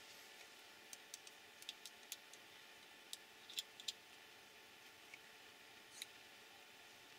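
Small plastic and metal model-car parts clicking and tapping as they are handled and fitted together by hand: a scatter of faint, sharp clicks, most between one and four seconds in, the loudest near four seconds, and one more near six seconds, over near silence.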